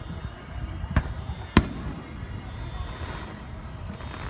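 Aerial firework shells bursting: two sharp bangs a little over half a second apart, the second louder, over a steady low background rumble.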